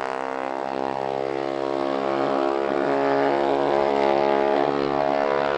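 Racing mini bikes' small single-cylinder engines held at high revs as they race away down the street, a steady engine drone.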